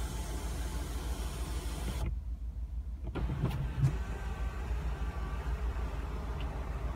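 Electric motor of a 2016 Ford F-150 Platinum's panoramic moonroof sliding the glass panel open, a steady hum over the truck's idling engine. A few clicks and a thump come a little under four seconds in.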